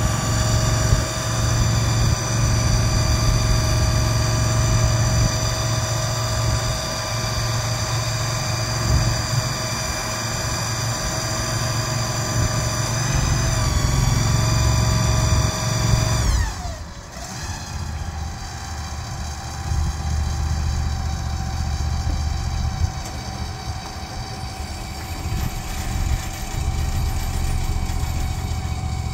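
Engine of a Mule shed mover running steadily with a high, many-toned whine as it moves a shed. About 17 seconds in, the pitch drops sharply, and it then carries on lower and a little quieter.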